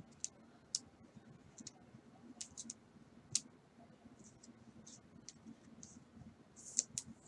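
Faint, scattered light clicks and ticks of thick trading cards being handled and slid against one another between the fingers, the loudest about three seconds in and again near the end.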